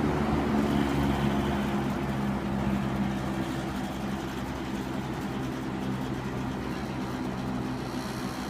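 1978 Sears (Lasko) Model 8131 20-inch box fan running on medium speed, a steady hum of the motor under the rush of air from the blades. It gets gradually quieter over the first few seconds as it slows from high, then runs evenly.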